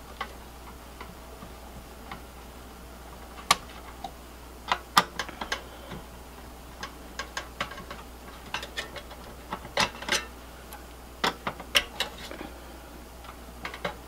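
Irregular sharp metal clicks and taps, some in quick clusters, from a Phillips screwdriver working the screws of a server's CPU heat sink as it is loosened and lifted off.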